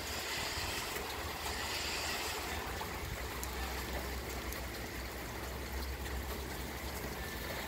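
Steady rain falling, an even hiss of water with a low steady rumble underneath.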